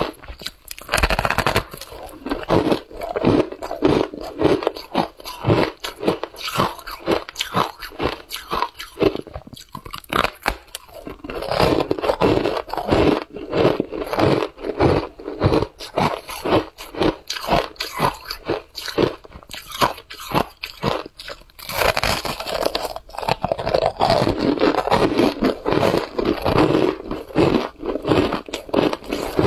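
Packed shaved ice dusted with matcha powder being bitten and chewed. The crunches come about three a second, with heavier bursts of crunching where fresh bites are taken, about a second in, around the middle and two-thirds of the way through.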